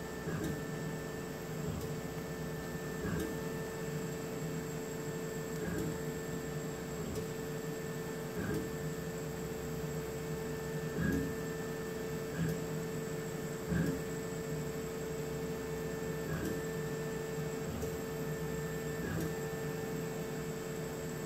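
Laser cutter running as it cuts slots into plywood: a steady machine hum with a held tone, and a short knock from the moving head about every two and a half to three seconds.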